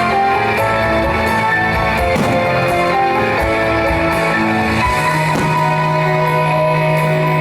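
Background music led by guitar, moving through a run of held notes and settling on a long sustained chord about five seconds in.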